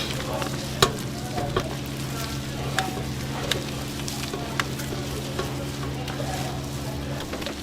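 Fried chicken being stirred with a metal utensil in a metal pan over a light sizzle, the utensil clicking sharply against the metal every second or so. A steady electrical hum from kitchen equipment runs underneath.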